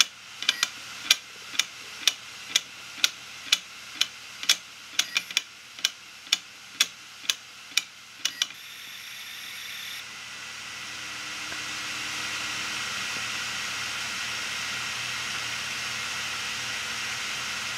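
Failed 2 TB hard drive running with its cover off: the read/write head arm swings and clicks about twice a second, the repeated clicking of a dead drive that cannot read its platters. After about eight seconds the clicking stops, and a steady whirring hiss from the spinning platter rises and then holds.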